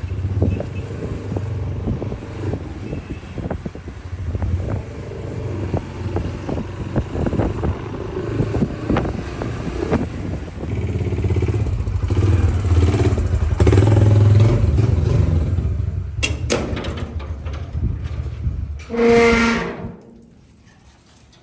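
Vehicle engine and road noise heard on the move: a steady low rumble with rattles and knocks. Near the end there is a brief pitched sound, then the noise drops away abruptly.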